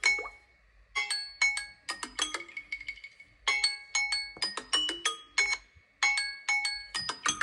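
A smartphone ringing with its melody: short phrases of quick marimba-like notes, each phrase repeating about every two and a half seconds.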